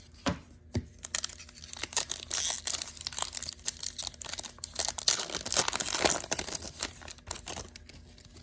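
Upper Deck hockey card pack's wrapper being torn open and crinkled in the hands: a dense run of crackling and rustling, after two soft knocks at the start.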